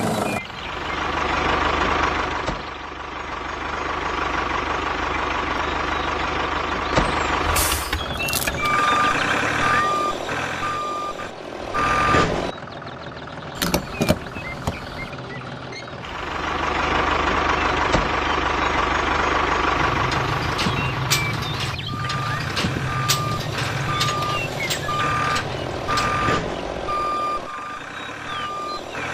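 Reversing alarm beeping in two runs of evenly spaced single-tone beeps, over a machine running steadily.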